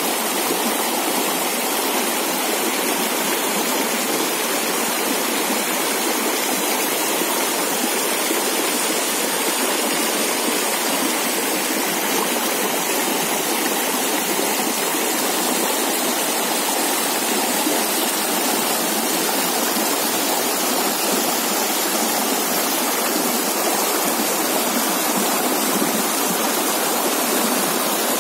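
Small, fast stream rushing and splashing over rocks: a steady, even rush of water.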